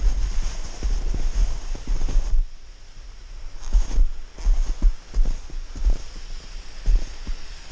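Uneven low thumping rumble on a snowboarder's action-camera microphone, from wind buffeting and the board shifting in the snow, with scattered crunchy scrapes; it eases off for about a second a third of the way in.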